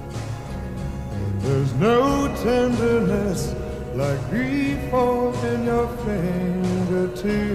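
Background music: a slow oldies ballad with a man singing over the accompaniment.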